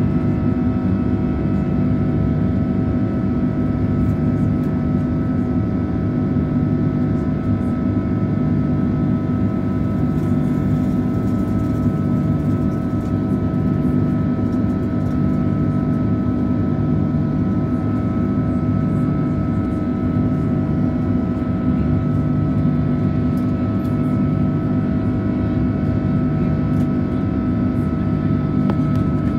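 Airliner jet engines heard from inside the cabin during the climb after takeoff: a steady drone with constant engine tones over a low hum that swells and fades every two to three seconds.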